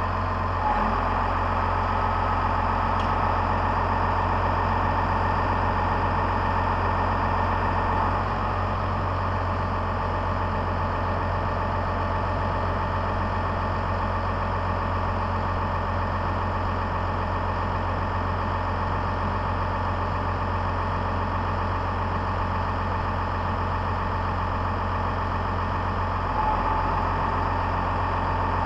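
Red Case IH tractor's diesel engine idling steadily. A higher whine rides on it for the first eight seconds or so, fades, and returns near the end.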